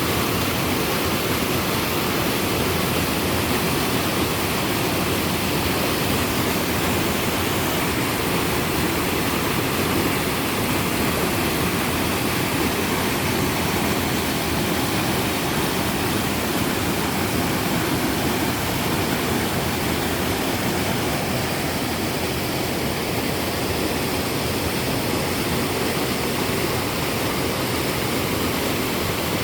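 Waterfall on a mountain stream: a steady, unbroken rush of falling water.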